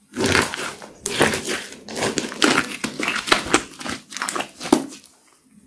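A mass of slime squeezed and kneaded by hand, giving a dense run of crackling, popping squelches that stops about five seconds in.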